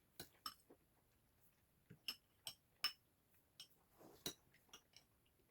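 Faint eating-utensil clinks against a bowl: about a dozen light, irregular taps, a few with a short ringing tone, sped up to double speed.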